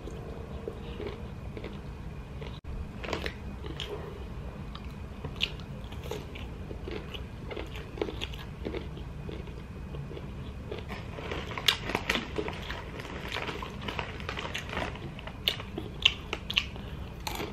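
Close-up chewing and mouth sounds of a person eating, with a few scattered crunches. About eleven seconds in, the crunches become frequent and sharper as she eats honey barbecue corn chips.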